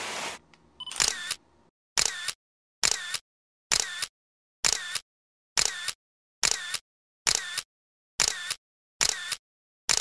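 Camera shutter click sound effect, repeated about once a second, eleven times in a row, with dead silence between the clicks.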